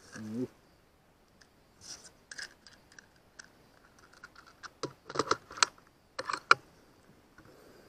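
Irregular metallic clicks and clacks from handling an FX M4 PCP air rifle's magazine and action, in small clusters, with the loudest clacks about five and a half to six and a half seconds in.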